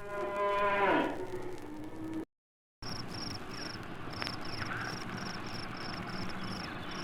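A cow lowing: one moo that falls in pitch and ends about two seconds in. After a brief silence, crickets chirp in a steady, even pulse of about three chirps a second.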